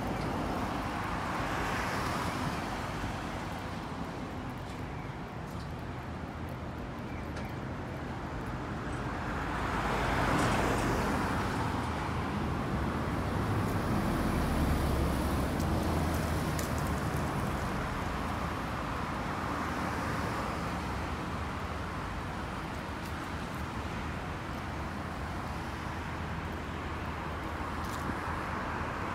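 City street traffic: cars passing one after another over a steady road hum, swelling loudest about ten seconds in and again around fifteen seconds, the second time with a deeper rumble.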